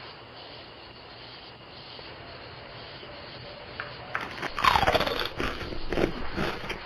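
Steady hiss from the doorbell camera's microphone, then, about four seconds in, loud rubbing and scraping noises close to the microphone, with one falling squeak-like glide among them.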